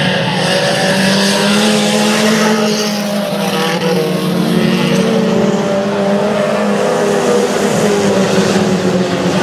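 A pack of junior sedan race cars' four-cylinder engines running hard as they race around the track. Several engine notes overlap, each rising and falling.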